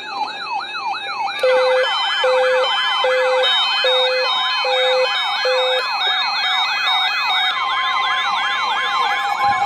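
Several overlapping electronic siren tones wailing up and down in quick repeated sweeps. Six short, evenly spaced low beeps sound through the middle, and a steady high alarm tone comes in near the end.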